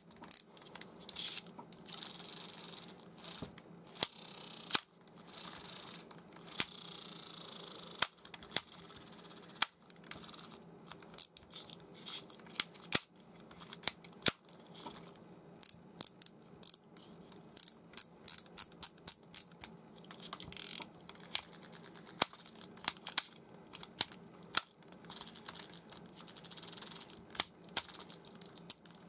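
Tailwalk Wide Basal fishing reel being handled and worked after a 5×9×3 mm ball bearing was fitted in place of its collar: a string of sharp small clicks, at times several a second, mixed with short stretches of rubbing.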